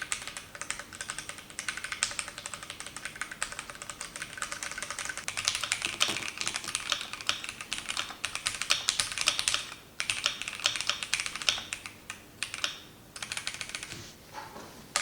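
Typing on a Keychron Q1 Pro mechanical keyboard fitted with Keychron K Pro Brown tactile switches: a fast, continuous run of key clacks, broken by a few brief pauses.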